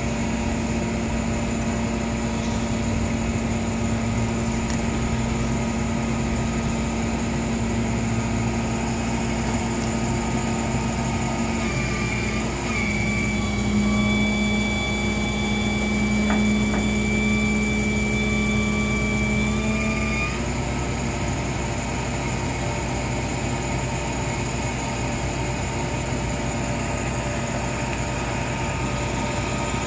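1953 Ford F-1 pickup's engine running steadily, with a higher steady whine joining in from about twelve to twenty seconds in.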